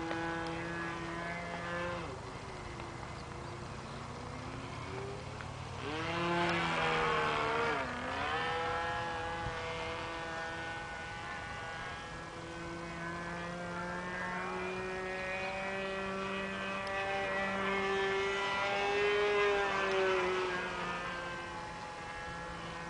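Small model airplane engine of an OK Model Commander 123 running in flight, a steady high drone. It swells and its pitch rises then dips sharply about six to eight seconds in as the plane passes close, then it settles and drifts gently in pitch as the plane circles.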